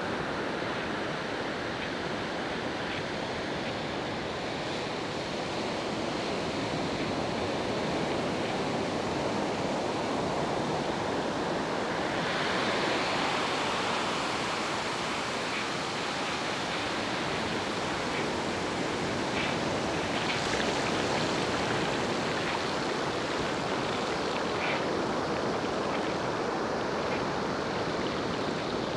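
Steady rushing noise of a bicycle ride: wind on the microphone and tyres rolling over a sandy, gravelly path, with a few faint small ticks. The rush grows a little louder about halfway through.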